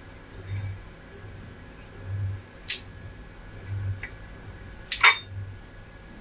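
Scissors snipping the string tied around a leaf-wrapped sticky rice dumpling (bacang): two sharp snips, nearly three seconds in and about five seconds in, the second louder. Under them a low hum pulses about every second and a half.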